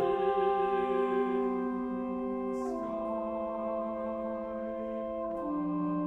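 Chamber ensemble of trumpet, trombone and bass clarinet playing soft sustained chords, which move to new pitches about two and a half seconds in and again near the end.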